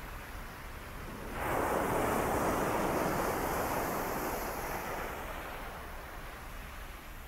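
Waves breaking on the shore: one wave crashes about a second and a half in and its wash slowly fades over the next few seconds, with wind on the microphone.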